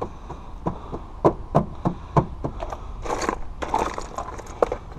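Jewelry and the trays of an old jewelry box clicking and clacking as gloved hands rummage through them: a run of sharp, irregular clicks, about a dozen.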